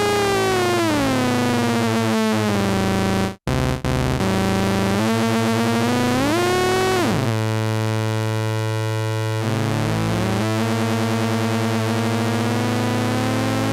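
Modal Electronics Cobalt8 virtual analog synthesizer playing a rich, buzzy sustained patch over a held low note, with pitch glides: falling in the first two seconds, sweeping up and then sharply down around the middle, and rising slowly near the end. The sound cuts out briefly about three and a half seconds in.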